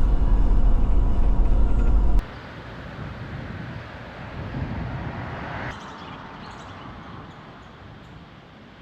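Steady low rumble of a car driving, heard from inside the cabin, that cuts off abruptly about two seconds in. What follows is a much quieter outdoor hiss that swells briefly midway and then fades.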